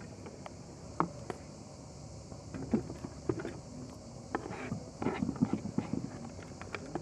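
Food-handling noises: grated onion tipped from a wooden bowl onto a metal serving tray, with light clicks and knocks of a spoon against the bowls. The knocks are sparse at first and come thick and fast in the second half.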